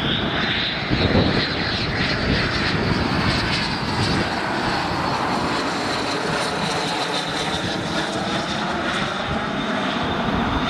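Cessna 525A CitationJet CJ2's twin Williams FJ44 turbofans on landing approach, passing close overhead. A loud high whine climbs slightly in pitch over the first couple of seconds and then holds steady, over a rumble that is heaviest at the start.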